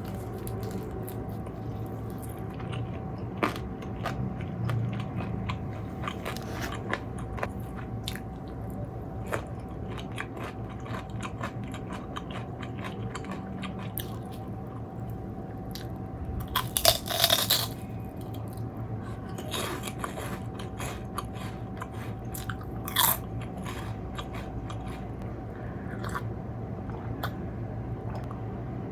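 Close-miked eating of fried food: repeated crunching bites and chewing, with a louder burst of crunches about two-thirds of the way in. A steady low hum and a faint constant tone run underneath.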